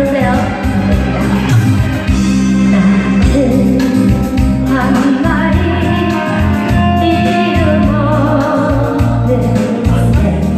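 A singer performing a song live over instrumental accompaniment with a steady bass line.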